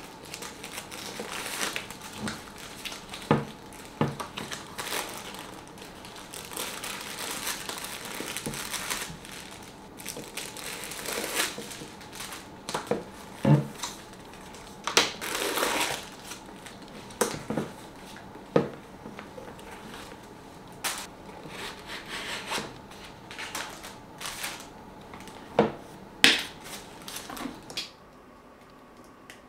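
Crinkling and rustling of paper stuffing and plastic wrapping pulled out of a new handbag and off its strap, with scattered sharp clicks and taps of handling. It stops shortly before the end.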